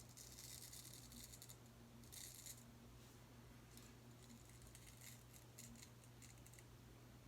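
Boker Tree Brand straight razor scraping through lathered stubble in a series of short, faint strokes, the strongest in the first half second and around two seconds in, with a steady low hum underneath.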